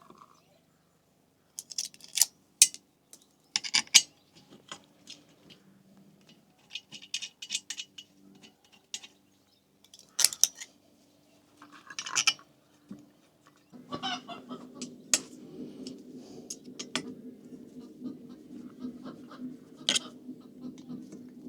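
Small metal parts and hand tools clicking and clinking as the diesel heater's fan is refitted by hand. About two-thirds of the way through, a steady low hum starts up under the clinks.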